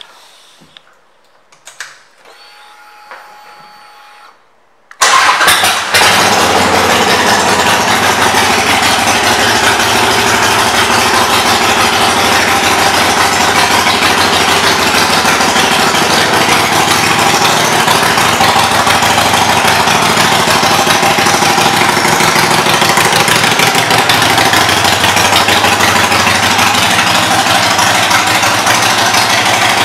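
Harley-Davidson Iron 883's air-cooled 883 cc V-twin, fitted with Vance & Hines pipes and intake, starting suddenly about five seconds in after a faint whine, then idling loud and steady.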